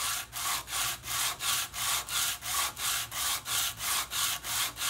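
A wooden handle rubbed quickly back and forth on sandpaper laid flat on a table saw's metal top, a rhythmic scratchy rasp of about four strokes a second. The handle's face is being sanded flat.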